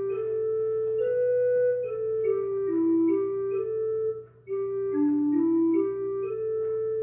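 Instrumental music: a slow melody of held notes over a steady low drone, with a short break between phrases about four seconds in.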